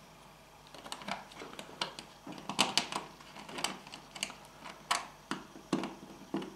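Small sheet-metal clamps clicking and tapping as they are handled and pushed onto the edge of a TV's steel back panel: a dozen or so sharp metallic clicks at uneven intervals, starting about a second in.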